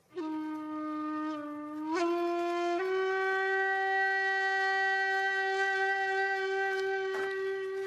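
A long horn-like tone with many overtones, stepping up in pitch twice in the first three seconds and then held steady.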